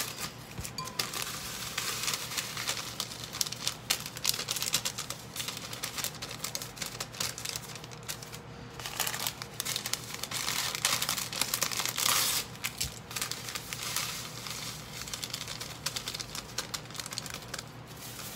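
Instant oatmeal packets crinkling and rustling in the hands as they are torn open and emptied, with dry oats pouring into a glass blender jar, a steady run of crackles and rustles.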